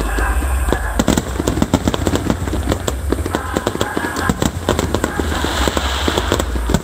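Fireworks barrage with many shells bursting in quick succession, a dense string of bangs and crackles several a second over a steady low rumble.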